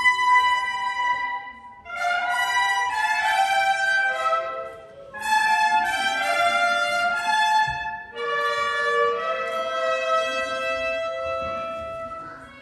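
Brass band playing a slow tune in long held notes, the phrases pausing briefly about two, five and eight seconds in.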